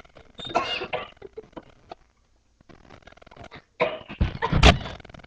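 A person burping: a short burp early, then a longer, louder burp about four seconds in.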